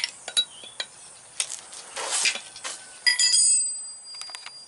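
A wrench working a nut down onto a brake chamber pushrod's threads, forced because the threads are not cut far enough: scattered metal clicks and a short scrape. About three seconds in, a steel wrench clinks down on concrete and rings for a second or so.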